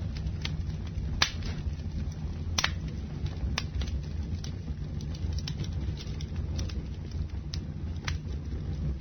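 Burning fire torches: a steady low rush of flame with scattered sharp crackles and pops, a handful of them louder.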